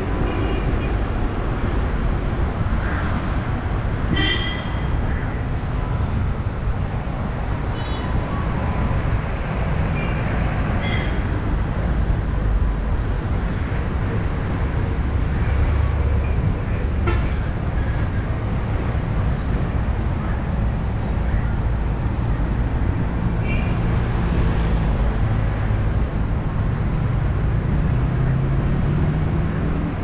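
Street traffic: a steady low rumble of vehicles passing, with a few brief higher sounds, and one engine rising in pitch near the end.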